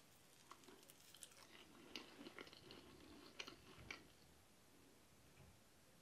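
Faint chewing of a bite of injera with shiro: soft, scattered wet mouth clicks, a few sharper ones between two and four seconds in, then quieter.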